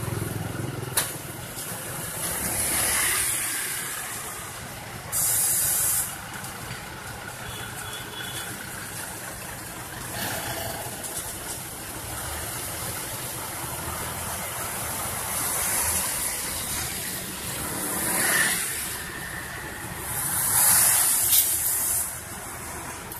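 Diesel engines of pneumatic-tyre road rollers, one a Sakai, running as the rollers work back and forth over fresh asphalt. Short bursts of hissing come several times, one starting and stopping sharply about five seconds in. A motorcycle passes near the end, where the sound swells.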